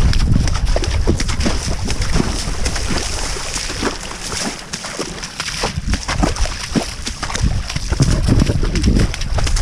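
Running footsteps splashing through shallow floodwater: a quick, irregular run of splashes and sloshes that eases briefly about halfway through. A low rumble, most likely wind on the microphone, sits under the splashes.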